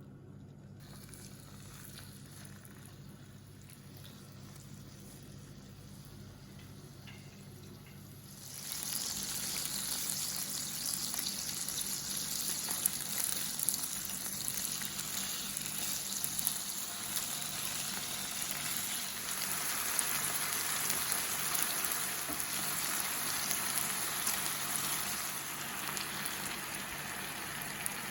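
Food frying in a hot pan: a low hum at first, then a sudden loud sizzle about a third of the way in as food hits the pan, continuing as a steady crackling sizzle.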